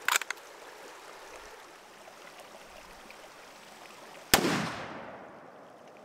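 A single rifle shot about four seconds in: one sharp crack followed by an echo that rolls away over about a second.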